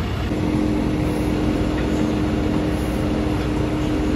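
Vacuum truck running steadily, engine and pump noise, with a steady hum coming in about a third of a second in.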